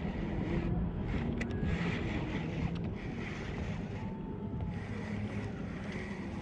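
Wind buffeting the microphone over the steady wash of sea water.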